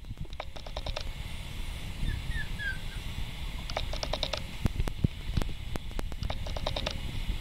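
Schnauzer puppy moving about on a tile floor: three short runs of quick clicks, a few faint high squeaks about two seconds in, and a couple of knocks past the middle.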